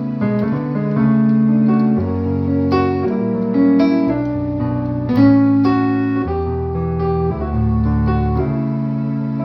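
Instrumental keyboard music: sustained chords over deep held bass notes, changing every second or so, with a few brighter struck notes on top.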